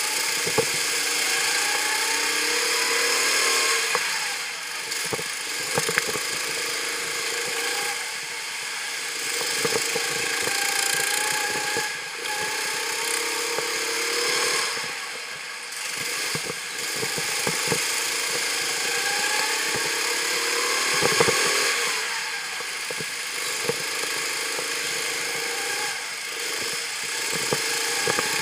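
Go-kart engine heard from the driver's seat, its pitch climbing over a few seconds as it accelerates and then dropping back, several times over, with scattered sharp clicks and knocks.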